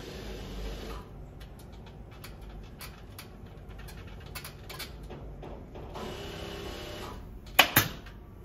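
Upholstery fabric being tugged and rustled as it is stretched over a sofa frame, with small irregular clicks, then a pneumatic upholstery staple gun fires twice in quick succession near the end; the two shots are the loudest sounds.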